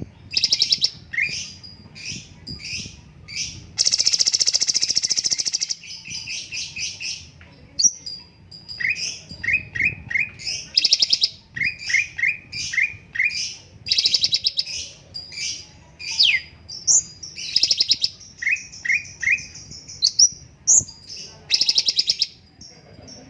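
Cucak cungkok songbird singing busily: rapid runs of short chirps, buzzy rattling trills of up to two seconds, quick series of short falling notes and sharp high whistles, one after another with barely a pause.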